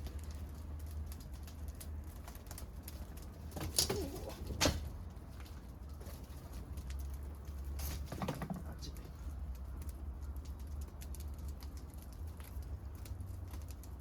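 Scrap-wood bonfire crackling with many small snaps, and two louder pops close together about four seconds in, over a low steady rumble.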